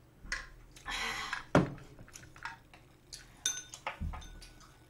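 Tableware clinks and knocks on a table: a hard knock about one and a half seconds in as a drinking tumbler is set down, then chopsticks clinking with a brief ring a couple of seconds later.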